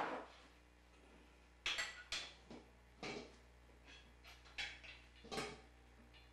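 Metal pressure cooker being handled: half a dozen sharp clanks and knocks, spaced about a second apart, over a faint low hum.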